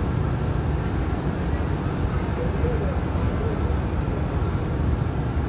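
Steady low rumble of a container ship's engine and propeller churning the water at the stern, an even noise with no distinct knocks or changes.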